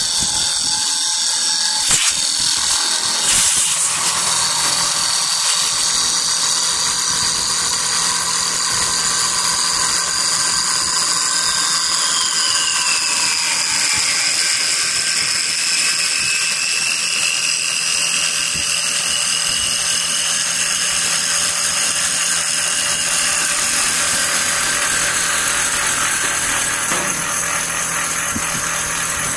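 Automatic wood-turning lathe cutting a spinning wood blank to shape, a steady loud hiss of wood being shaved over a high whine from the machine. A couple of knocks come in the first few seconds, and about halfway through one of the whining tones drops in pitch.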